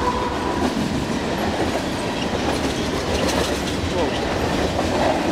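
Freight train rolling past a level crossing: a steady, heavy rumble of the locomotive and the wheels running over the rails.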